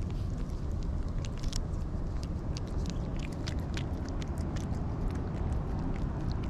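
A cat licking a lickable treat from a squeeze tube and then smacking its lips, making quick wet clicks several times a second. The clicks thin out after about four seconds. A steady low rumble runs underneath.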